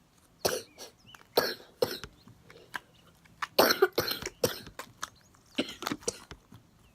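A girl with a cold coughing repeatedly in short, harsh bursts: a couple of coughs early on, a fit of several coughs about three and a half to four and a half seconds in, and two more near the end.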